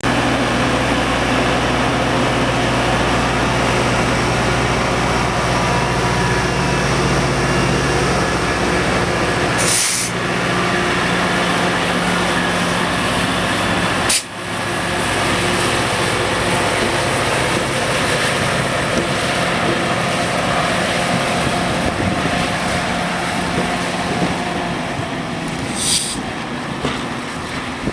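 VIA Rail F40PH-2 diesel locomotive running with a steady low engine tone as the passenger train pulls slowly out, giving way in the second half to the rumble of the stainless-steel coaches rolling past on the rails. Two short high hisses come about ten seconds in and near the end, and there is a sharp click about fourteen seconds in.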